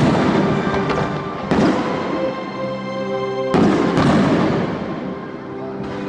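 Fireworks bursting over a playing music soundtrack: loud bangs at the start, about a second and a half in and about three and a half seconds in, each trailing off into crackle, while the music's sustained tones carry on underneath.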